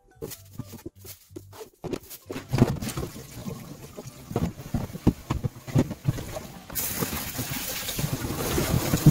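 Clear plastic food-storage containers knocking and clacking as they are handled, then scrubbed and rubbed in a sink, with plastic knocks. About two-thirds of the way through, tap water starts running in a steady hiss.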